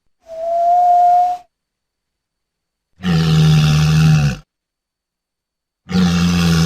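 Atlantic walrus calls: first a steady high note lasting about a second, then two low, rough calls rich in overtones, each about a second and a half long, the last starting near the end, with complete silence between them.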